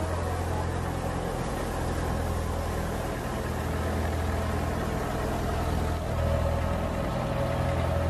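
Wheat thresher running steadily as wheat sheaves are fed into it: a constant low machine drone, with a higher steady whine joining in about halfway.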